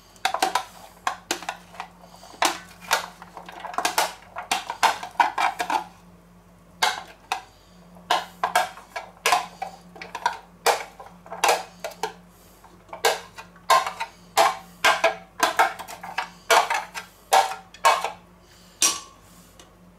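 Metal spoon scraping and knocking inside a clear plastic container held over a stainless steel bowl, an irregular string of clinks and taps with a short pause about six seconds in.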